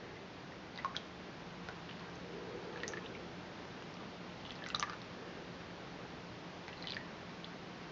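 Faint, sparse drips of raw cold-process soap batter falling from a plastic bowl's spout into a small plastic cup, about four soft drips a second or two apart over a quiet room hum.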